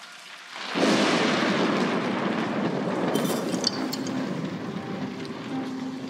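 A sudden loud thunderclap about a second in, rumbling and slowly dying away, with a brief high clink in the middle.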